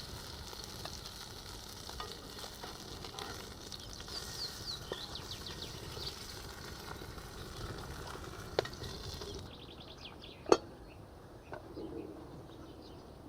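Small-fish patties frying in hot oil in a frying pan over an open fire: steady sizzling with a few sharp clicks, the loudest about three-quarters of the way through. The high hiss of the sizzle drops away about two-thirds in.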